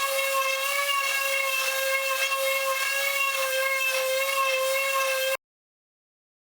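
A small power tool's electric motor running at speed with a steady high whine, cut off abruptly about five seconds in.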